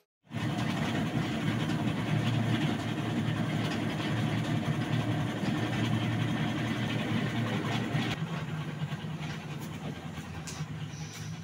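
Top-loading washing machine running with a steady low churning hum. About eight seconds in it gives way to quieter outdoor background noise.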